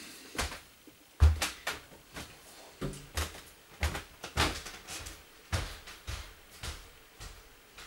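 Irregular knocks, thuds and rustles of belongings being handled and packed, about a dozen in a few seconds.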